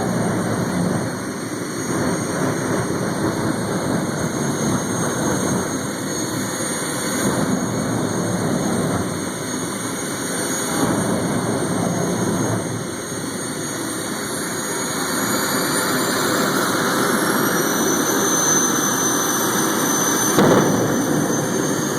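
Jet turbine engine of a turbine-powered S10 dragster running, a steady rush with a high, thin whine on top; a little past halfway the whine rises in pitch.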